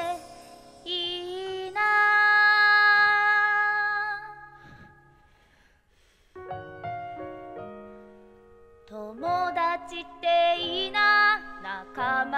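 A slow, gentle song sung with piano accompaniment. A long held sung note comes early, then a short quiet piano passage, and the singing comes back about nine seconds in.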